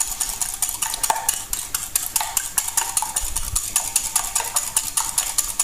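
Eggs being beaten with a fork in a glass measuring jug: a fast, even clicking of the tines against the glass.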